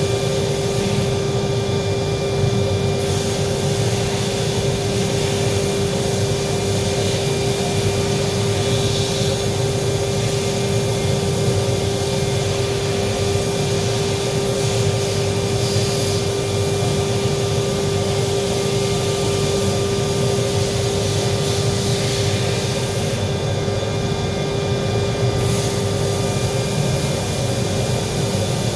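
Electric welding arc giving a steady hissing crackle with a constant hum, briefly dulling twice.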